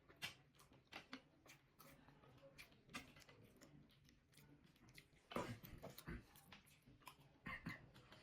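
Faint close-up chewing and mouth sounds of someone eating momo dumplings: a string of soft, wet clicks, louder about five seconds in and again near the end.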